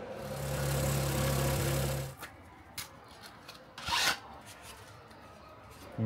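A small power-tool motor runs steadily for about two seconds with a low hum, then stops abruptly. A few faint clicks and a short scrape follow about two seconds later.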